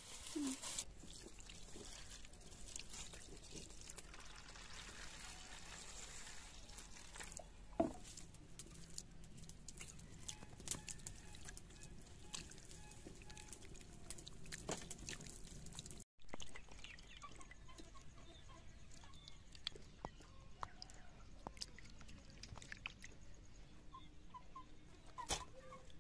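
Wet squelching and small clicks of hands kneading mashed raw fish with ground spices in a steel plate, with an occasional sharper click.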